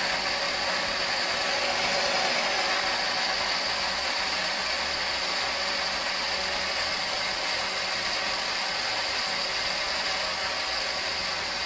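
Countertop blender running steadily at speed, blending milk with cooked amaranth, oats and strawberries: an even motor whine with a steady high tone.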